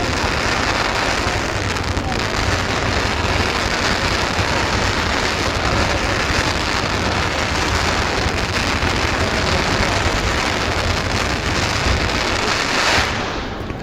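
Fireworks crackling in a dense, continuous hiss like heavy rain, which dies away near the end.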